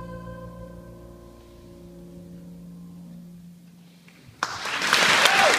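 The final held chord of a song for voice, choir and double bass fades away. After a brief hush, the audience suddenly starts applauding about four seconds in.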